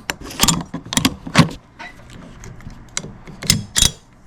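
M1 Carbine's bolt and operating slide being worked back and forth by hand to spread fresh grease, giving a series of sharp metallic clacks: several in the first second and a half, a quieter stretch, then two more near the end.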